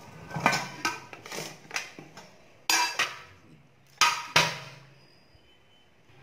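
Stainless steel spice box being opened and handled: the steel lid clatters off and is set down, and a spoon clinks against the metal cups. About eight sharp metallic clinks with short ringing, the loudest about three and four seconds in.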